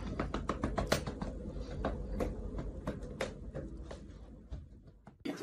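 A run of irregular light clicks and taps, several a second, that thin out and fade about four and a half seconds in.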